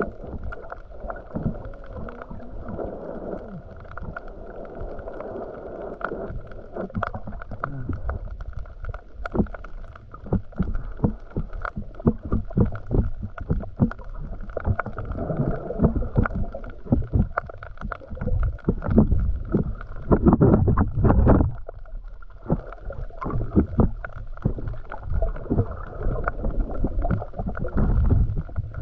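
Muffled underwater sound of water moving and bubbling, with many small clicks and crackles throughout and a few louder swells of low rushing noise in the middle.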